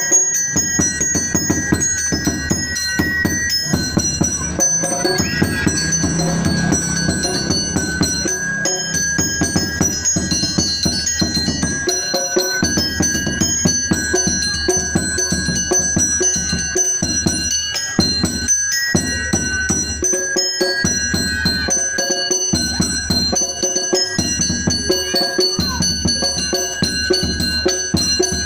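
Gamelan-style music: chiming metallophone and bell-like notes repeating over a steady drum beat.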